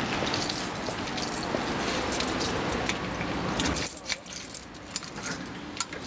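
A bunch of keys jangling, as an elevator key is handled for a key-switched hydraulic lift. About four seconds in the rattling drops off and only a few sharp clicks follow.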